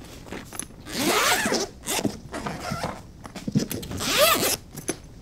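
Zipper of a hard-shell suitcase being pulled open in two long runs, the first about a second in and the second near the end, each a rasp that rises and falls in pitch, with a few small clicks between.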